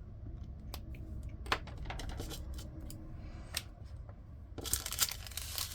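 Small resin diamond-painting drills clicking as they are handled and sorted, with scattered sharp ticks, then a dense rattling rustle starting near the end as they are poured.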